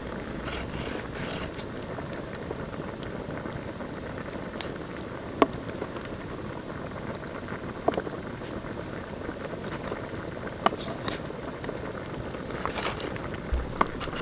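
Large knife cutting raw chicken on a wooden cutting board: a few sharp knocks of the blade on the board, spaced irregularly, over a steady background hiss.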